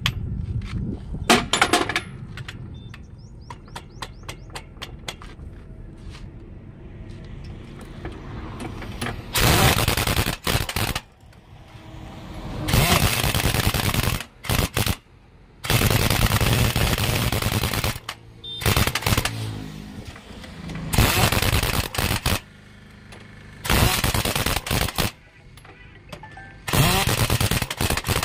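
Pneumatic impact wrench hammering on a truck's wheel nuts in about eight bursts of one to two seconds each, beginning about nine seconds in. Before that there is a lower, steady rumble with a few sharp clicks.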